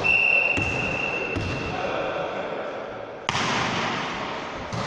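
A referee's whistle blows once, a steady high note of about a second and a half, over ball thuds and voices in a sports hall. About three seconds in comes a sudden loud bang.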